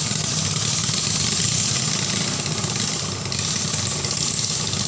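Small 6.5 hp single-cylinder petrol engines of ketinting longtail racing boats running at a steady speed, a continuous rapid-firing drone.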